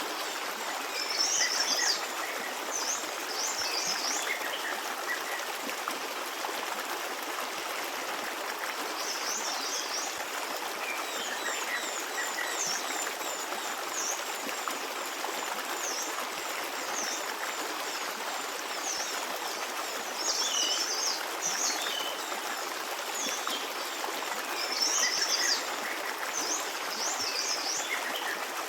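Forest stream running steadily, with small birds chirping in short high bursts several times over it.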